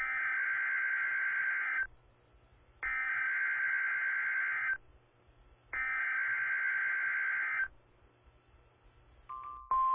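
Emergency Alert System SAME header from NOAA Weather Radio: three bursts of shrill, buzzy digital data, each about two seconds long with a second's pause between. The bursts encode an incoming weather alert, here a tornado watch. Just before the end a short tone sounds, and the steady alert tone begins.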